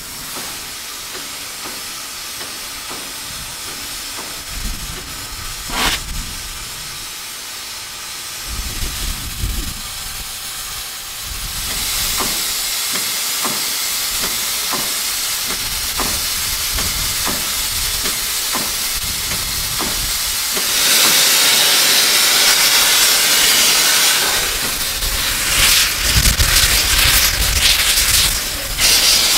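Steam locomotive #4960, a 2-8-2 Mikado, standing and hissing steam. Partway through, its steam-driven air pump works with steady knocks about one and a half a second. From about two-thirds of the way in, a much louder blast of steam starts, with low rumbling pulses under it near the end.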